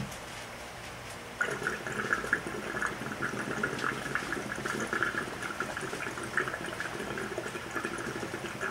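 Water bubbling in a glass dab rig as someone draws a hit through it, starting about a second and a half in and going on steadily.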